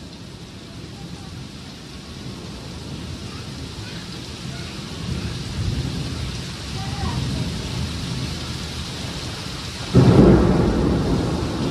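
Heavy tropical rain pouring steadily, with thunder rumbling that builds from about halfway through, then a sudden loud thunderclap near the end that slowly rolls away.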